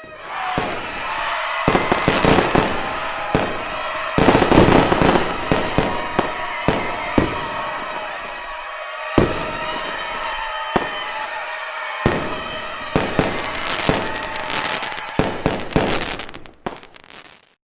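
Fireworks going off: many sharp bangs and crackles in quick succession over a continuous din, dying away near the end.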